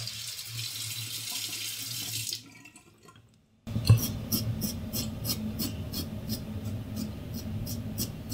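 Sink tap running for a couple of seconds. Then, after a short gap, a Yuma double-edge safety razor with a Shark blade scrapes through beard stubble in short repeated strokes, about three a second.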